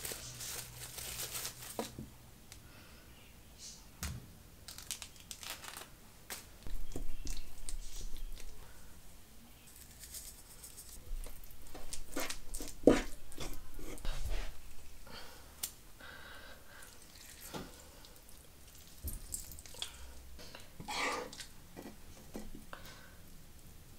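Kitchen food-preparation handling sounds: tearing and crinkling with scattered light knocks and clicks, one sharper knock about halfway through.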